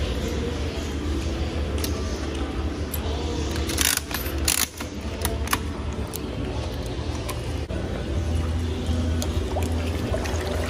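Gumball-style fish food dispenser being worked by hand: a cluster of sharp clicks and rattles about four to five seconds in, then a few lighter ones, as the knob turns and pellets drop out. Steady hum and faint background music run underneath.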